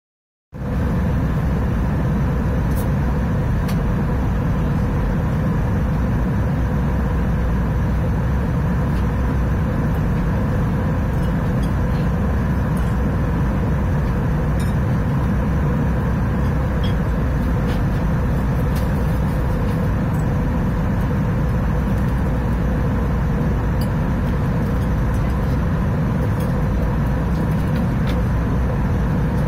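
Cabin noise inside an Airbus A319 airliner in descent: a steady rushing noise of airflow and engines, heaviest in the lows, with a faint steady hum on top. It starts abruptly about half a second in.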